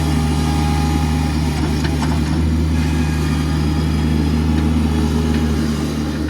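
Bobcat MT100 mini skid steer engine running steadily at constant revs.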